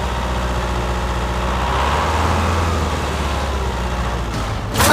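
Engine running steadily at idle, a deep even hum, with a sharp knock just before the end.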